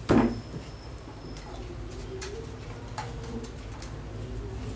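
A single thump as a dough ball is pressed down by hand onto a marble rolling stone, followed by a few light clicks. A low, wavering call runs in the background through the middle.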